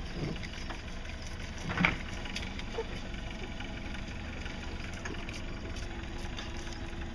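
Boat engine running steadily, a low rumble, with faint scattered clicks and one sharp knock about two seconds in.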